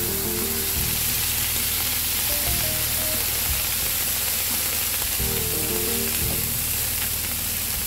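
Lemon juice and cooking juices sizzling steadily on a hot flat iron tawa loaded with chicken and vegetables, giving off steam: the "shoo-shain" hiss of street-food griddle cooking.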